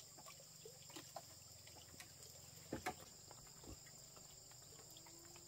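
Quiet rural background: a faint, steady high-pitched drone of insects, with a few soft knocks about one second in and a slightly louder pair near three seconds in.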